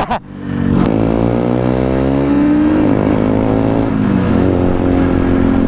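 125cc single-cylinder motorcycle engine accelerating hard, its note rising for about two seconds, then dropping and climbing again as it shifts up.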